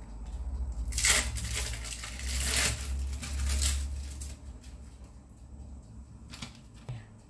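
Plastic wrappers of individually wrapped cheddar cheese slices crinkling as the slices are peeled out by hand, in rustling bursts that start about a second in and last about three seconds, then a couple of short clicks near the end.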